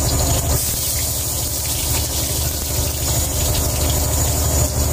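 Garlic sizzling in hot oil in an aluminium pot, a steady hiss, over the steady low drone of a boat's engine.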